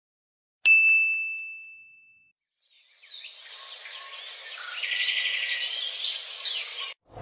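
A single bright ding sound effect that rings and fades away over about a second and a half. Then, after a short silence, birds chirping over an outdoor hiss, which cuts off suddenly near the end.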